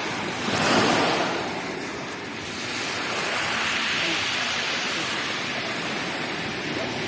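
Sea surf: waves washing onto the shore in a steady rush, with one wave breaking louder about a second in and another surge around four seconds in.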